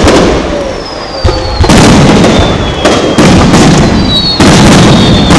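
Fireworks display: aerial shells bursting in a run of loud booms about every second, each rumbling on. Thin whistles fall slowly in pitch between the bursts.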